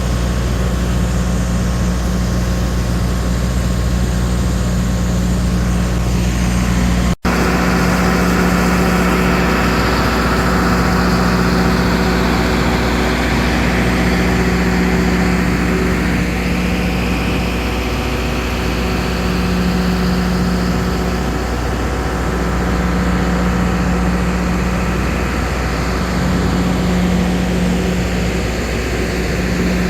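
Diamond cutting equipment and its engine running steadily at a construction site, a low hum under a higher whine that rises and falls as it cuts rock. The sound cuts out for an instant about seven seconds in.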